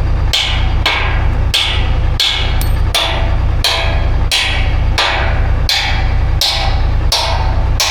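Hammer blows on metal in a steady rhythm, about one and a half strikes a second, each ringing briefly, over an engine running steadily underneath.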